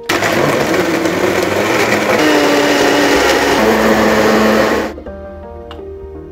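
Countertop blender running at full power, blending a smoothie of oats, banana, fruit and milk; its motor pitch drops a little about three and a half seconds in, and it cuts off suddenly about five seconds in.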